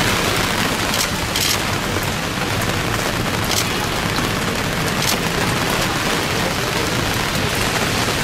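Steady hiss of rain falling on a wet street, with the low rumble of strong wind on the microphone and a few brief sharper rushes of hiss.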